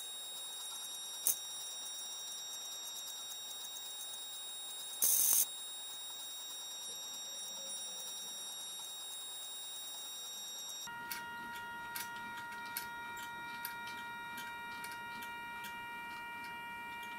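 Steady electronic whine made of several high-pitched tones, with a short loud burst of hiss about five seconds in. About eleven seconds in, the tones switch to a lower set and scattered light clicks begin.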